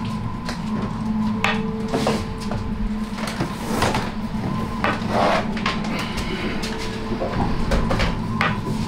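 Woodwork and loose things inside a rolling boat knocking and clattering in a storm, over a steady low hum, with a few louder clatters about 2, 4 and 5 seconds in.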